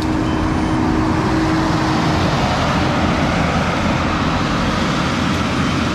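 Skid steer's diesel engine running steadily under load as it works the hydraulic tree shear, with a steady tone over the first couple of seconds.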